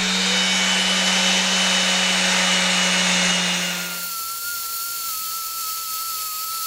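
Random orbit sander with 120-grit paper running steadily while sanding a wooden knife handle and its steel tang. About four seconds in, its low hum drops away and a higher, slightly wavering whine carries on.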